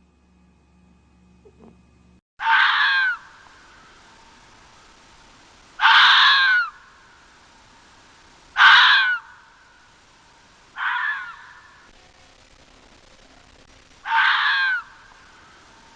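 An animal calling five times: loud cries under a second long, a few seconds apart, each falling in pitch at its end.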